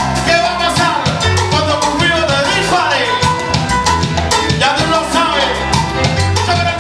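Live salsa band playing at full volume: bass, keyboard and drum kit keep a steady dance rhythm under the melody.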